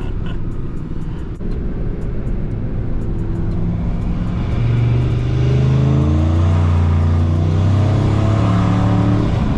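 Single-turbo 5.4-litre V8 of a 2003 Ford F-150 accelerating hard at full throttle, heard from inside the cab. The engine gets louder and climbs in pitch from about halfway through as boost builds to nearly 13 psi.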